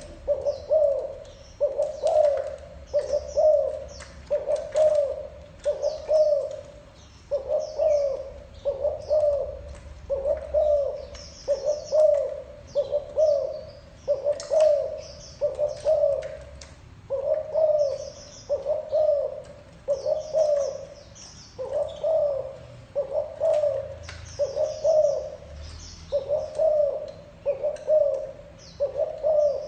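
Spotted dove cooing over and over in a steady series, about one coo a second with a few short pauses, while small birds chirp thinly in the background.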